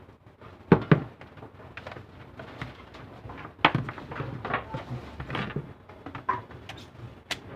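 Clicks and knocks of a laptop being handled and set up for power-on, with two sharp knocks a little under a second in and lighter clicks after.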